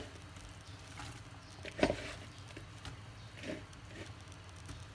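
Two soft knocks, the first about two seconds in and a fainter one about a second and a half later, over a faint steady hum.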